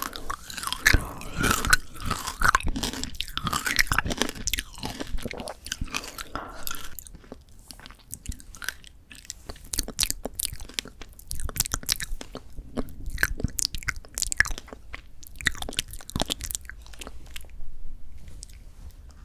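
Close-miked chewing of frozen Shine Muscat grape tanghulu: the hard candy shell crackling and crunching between the teeth, with loud dense crunches in the first several seconds giving way to lighter, wetter chewing. The sound cuts off abruptly at the very end.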